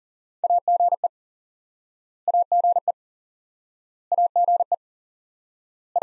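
Morse code tone sending the abbreviation AGE (·– ––· ·) at 40 words per minute: a quick run of beeps at one steady pitch, repeated three times about two seconds apart, with a fourth run starting right at the end.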